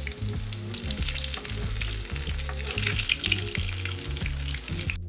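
Grated-potato hash browns sizzling and crackling in shallow hot oil in a frying pan, over soft background music with steady low notes. The sizzle cuts off suddenly near the end, leaving only the music.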